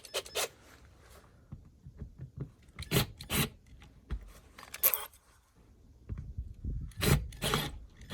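Small metal clicks, rattles and scrapes from handling drill bits: a 9/32 in bit being taken from its set and fitted to the drill, in scattered short bursts with quiet gaps between.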